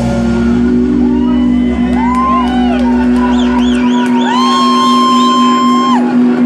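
A live rock band's final chord ringing out: a held guitar note over the bass, which stops about four seconds in. Audience members whoop and shout over it in rising and falling cries, one held longer near the end.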